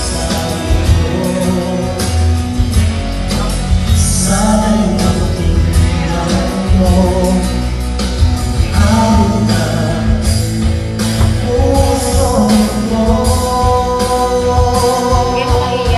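Karaoke: a backing track plays loudly through the room's speakers while a person sings along to Tagalog lyrics on the screen, holding long notes near the end.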